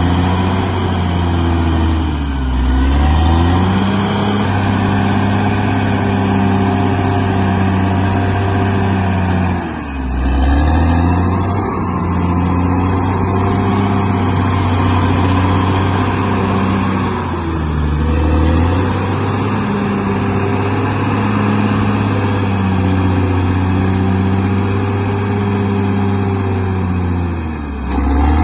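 Bulldozer's diesel engine running hard, its pitch dipping briefly and recovering four times, about every eight seconds.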